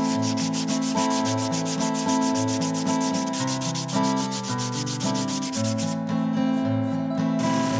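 Strip of sandpaper drawn rapidly back and forth around a wooden knife handle, shoeshine-style: fast, even scratching strokes of abrasive on wood.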